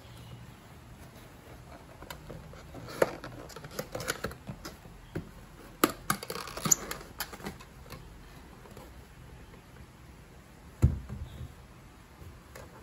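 Thin white cardboard magazine file being folded and assembled by hand: scattered taps, creases and scrapes of card, busiest in the middle. Near the end, a single dull thump as the box is set upright on the desk.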